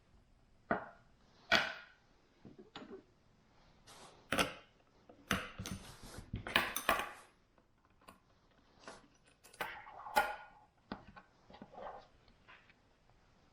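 Irregular clinks, clicks and short scrapes of hand tools and small metal parts being handled while an air compressor is taken apart.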